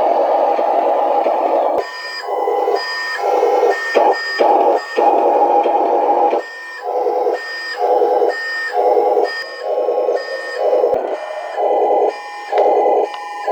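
1:18 Huina Scania 770s RC truck running. Its sound runs steadily for about two seconds, then goes on and off in short bursts, roughly one every half second or so.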